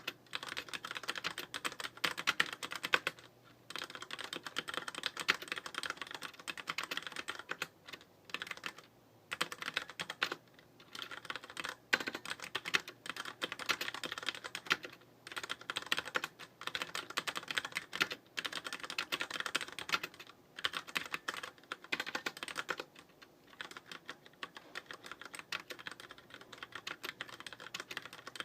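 Deck Francium Pro mechanical keyboard with tactile brown switches being typed on in quick runs of key clicks broken by short pauses. The keystrokes become lighter and quieter about three quarters of the way through.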